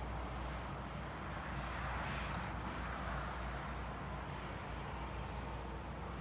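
Faint hoofbeats of a Kiger mustang moving on soft arena sand, under a steady low hum.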